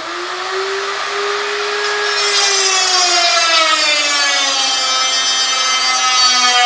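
A rotary power cutting tool spinning up and cutting notches into a vehicle's steel frame. Its whine climbs briefly, then sinks steadily in pitch from about two seconds in as the tool comes under load, over a steady hiss of cutting.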